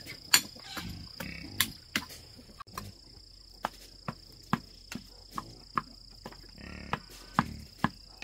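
A series of sharp knocks or taps, roughly two a second with a short pause, over a steady high insect whine.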